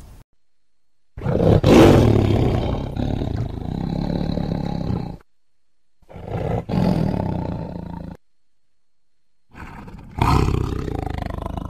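Tiger roaring in three loud bouts separated by short silences, the first the longest at about four seconds.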